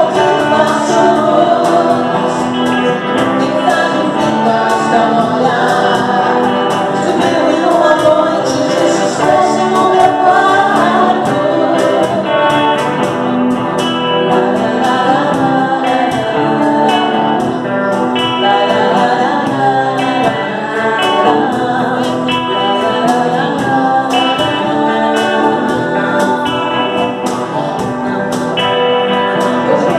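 Live band playing a pop-rock song: lead vocals over electric guitar, with a steady beat from a cajón and cymbal.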